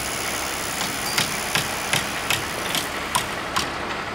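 Footsteps crunching on compacted gravel, about two to three steps a second, starting about a second in. A steady engine hum from site machinery runs underneath.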